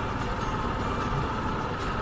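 Yamaha FZ25 motorcycle running at steady speed while being ridden, its single-cylinder engine and the road noise a steady, even drone.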